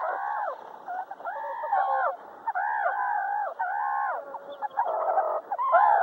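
A run of animal calls, each an arching note that rises and then falls, about half a second long, following one another with short gaps.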